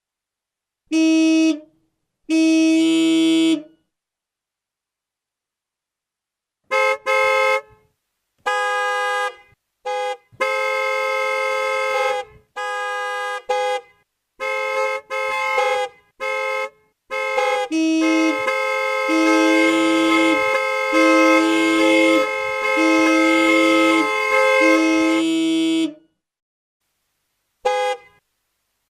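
A horn sounding in a series of blasts of varying length, each holding a steady pitch with two or three notes together, and dead silence between them. The longest blast comes in the second half and runs about eight seconds, with a lower note pulsing on and off beneath it.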